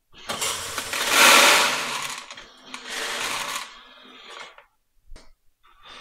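Soybeans being poured into the hopper of a portable grain moisture tester, rattling in three pours. The first is the longest and loudest, and a single click comes near the end.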